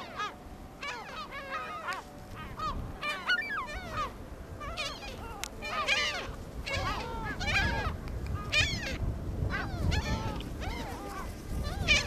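Seagulls calling: many short, arching cries overlapping one another, with a low rumbling underneath.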